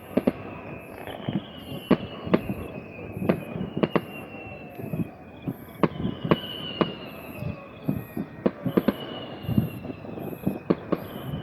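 Traditional aerial fireworks exploding in an irregular series of sharp bangs, at times two or more a second, over a continuous background crackle.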